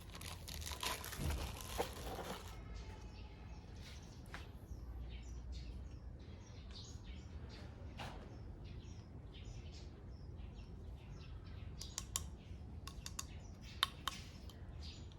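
Packaging paper or plastic crinkling for the first couple of seconds, then scattered light clicks and taps as boxed parts are handled.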